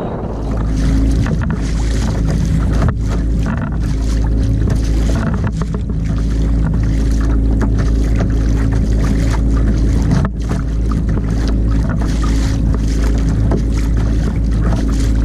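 Water rushing and splashing along the hull of a Hobie Outback kayak under way, with heavy wind rumble on the microphone.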